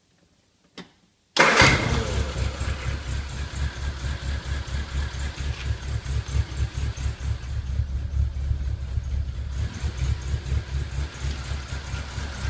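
1976 MG Midget 1500's four-cylinder engine starting about a second and a half in, catching at once and then running with a steady low throb. The starter now turns it over with a new cable fitted between starter and solenoid.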